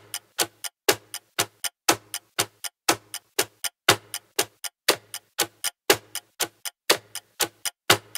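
Clock-tick countdown sound effect: sharp, even ticks about four a second, the loudest on each second.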